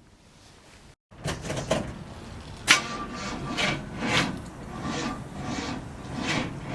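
1955 Chevy truck's starter cranking the engine slowly, a rhythmic churning about two strokes a second that begins about a second in. It seems to be a sign of a weak battery.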